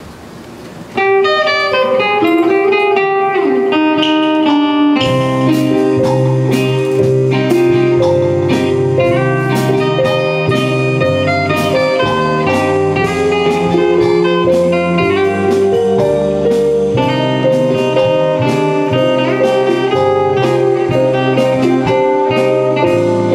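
Live orchestra and band playing a song's instrumental introduction, with no singing yet. A picked melody of quick notes starts about a second in, and a bass line comes in around five seconds.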